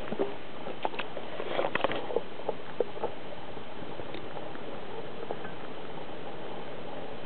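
A hungry cat eating wet cat food out of a tipped-over tin: quick, wet licking and chewing clicks, thickest in the first three seconds and sparse after, over a steady hiss.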